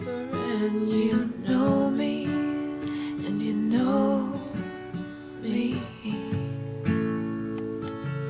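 Acoustic guitar strummed, with a woman's voice singing without clear words for about the first six seconds; after that the guitar plays on alone.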